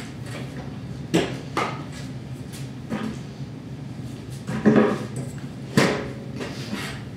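A handful of scattered knocks and clanks of metal and tools being handled, a couple of them with a brief metallic ring, over a steady low hum.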